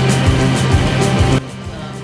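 Loud rock-style background music with a regular heavy beat and a sustained bass note, which cuts off suddenly about a second and a half in, leaving only a much quieter background.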